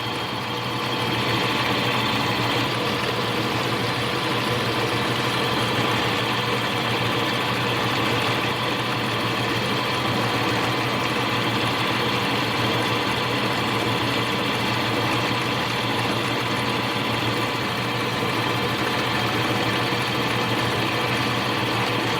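Small metal lathe running steadily, its motor and gearing giving an even hum with a whine, while a high-speed steel tool takes a light cut of about a thousandth of an inch off a small plastic bushing.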